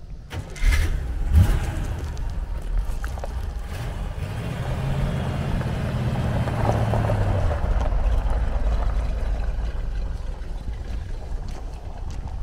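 Chevrolet Corvette Sting Ray V8 starting about a second in, then running and pulling away, its note rising for a few seconds in the middle before settling as the car moves off across gravel.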